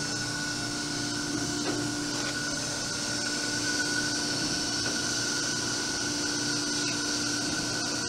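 Clausing/Jakobsen hydraulic surface grinder running steadily with its 10-horsepower spindle, hydraulics and coolant on: a steady hum with a higher whine over it. The programmed downfeed is complete and the wheel is sparking out.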